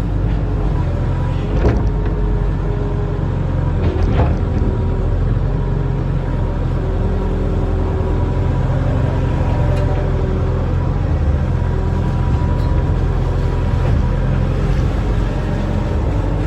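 Diesel engine of a barge-mounted excavator running steadily while it dredges, with two short knocks, about two and four seconds in.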